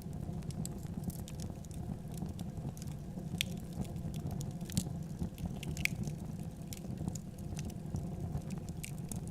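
Wood fire burning in a fireplace: a steady low rumble of flames with irregular crackles and pops, a few sharper ones about three and a half, five and six seconds in.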